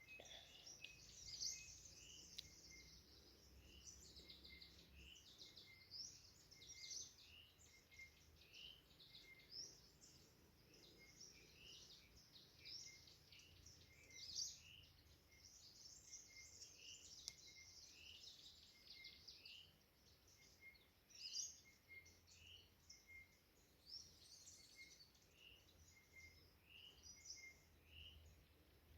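Faint chorus of several forest birds singing and twittering. One short rising call repeats about once a second through the chorus.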